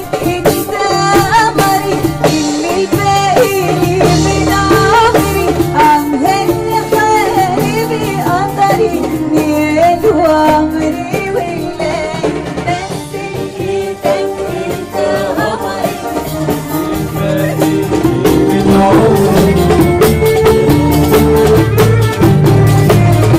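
A woman singing an Arabic song live, backed by a Middle Eastern ensemble of strings, keyboard and hand percussion keeping a steady beat.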